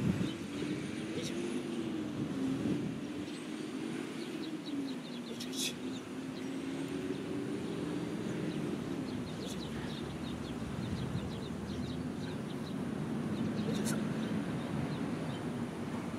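A distant engine drones steadily, its pitch slowly wavering up and down. Two sharp clicks come about five and a half seconds in and near the end, with faint chirps in between.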